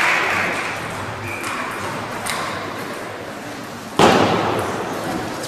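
Spectators' applause tapering off, then quiet hall background with a few faint clicks, and one sharp, loud knock about four seconds in.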